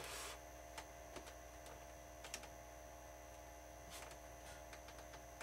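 A few faint, scattered clicks and light taps of a small plastic servo cover being handled and pressed into place on a model airplane wing, after a brief soft rustle at the start, over a steady faint electrical hum.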